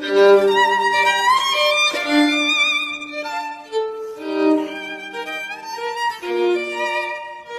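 Background music: a violin playing a melody, moving from note to note with vibrato and an occasional slide.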